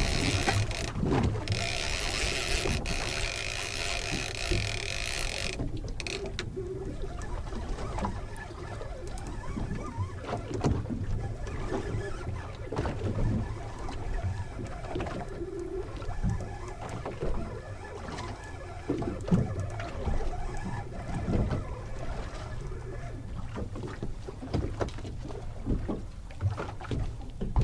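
Water slapping and sloshing against the hull of a small fishing boat, with a low wind rumble and scattered small knocks and clicks. A steady hiss over the first five seconds or so cuts off suddenly.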